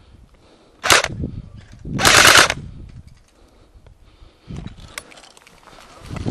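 Airsoft gun firing two short full-auto bursts about a second apart, the second one longer.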